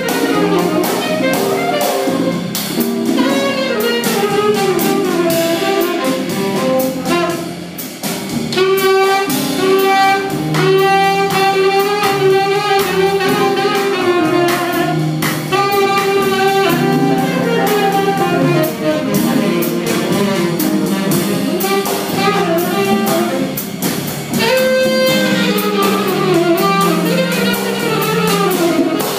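Live jazz band playing an instrumental bossa nova passage: a tenor saxophone carries a wandering melody over a drum kit's cymbals and congas.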